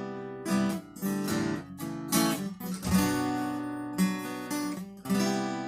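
Acoustic guitar strummed and picked in an instrumental passage, chords struck about once a second or faster and left ringing, the last chord ringing out near the end.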